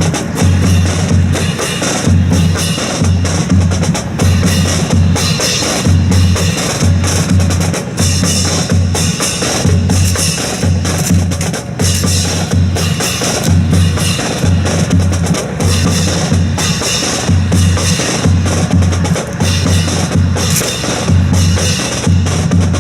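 Drum-led march music with a steady bass-drum beat and snare, played over loudspeakers as the accompaniment to a rifle drill display.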